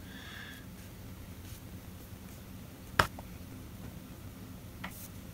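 Fingertip taps on a smartphone touchscreen while entering a password: a few faint ticks, one sharp click about three seconds in, and a couple more near the end, over a faint low steady hum.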